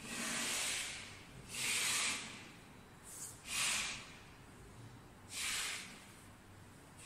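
Short puffs of breath-like hiss: four breathy bursts about a second or two apart and a small one just before the third, each under a second long.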